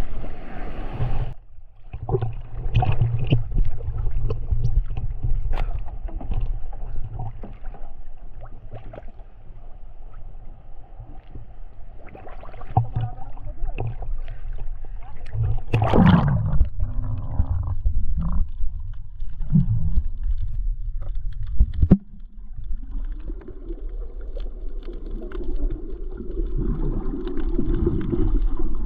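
Sea water sloshing and splashing around a microphone held at the water's surface, over a low rumble, with one louder splash a little past halfway. About three quarters of the way in it changes abruptly to the muffled, gurgling sound of the sea heard underwater.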